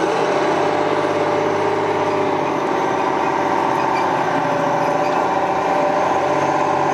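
Diesel engine of a TLAV tracked armoured carrier running steadily as it moves a dead Lynx tracked vehicle on tow bars.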